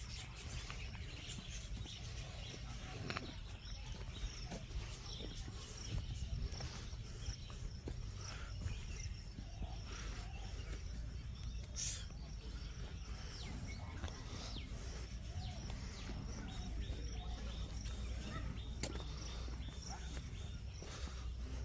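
Outdoor rural ambience: a steady low rumble with faint, scattered bird chirps.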